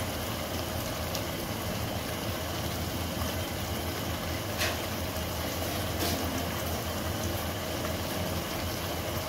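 Masala kaleji (liver curry) sizzling steadily in its oil in an open pot on a gas burner, over a steady low hum, with two faint pops midway.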